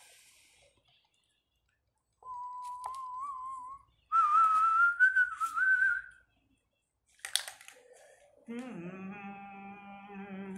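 Whistling: a wavering note, then a louder, higher note that climbs in small wobbles. Near the end a steady low note with many overtones comes in.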